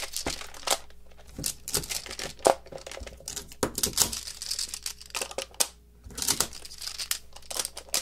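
Plastic Playmags magnetic tiles clacking together in quick irregular clicks as they are picked up and snapped onto a stacked tower, with a brief pause about six seconds in.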